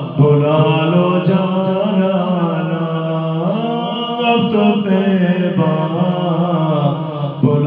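A man singing a naat solo and unaccompanied into a microphone, in long drawn-out phrases whose held notes slide up and down in pitch.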